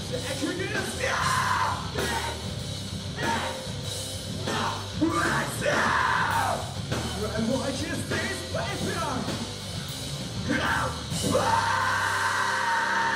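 Live rock band playing with sung vocals over electric guitars, bass and drums. About eleven seconds in, a long held high note sets in.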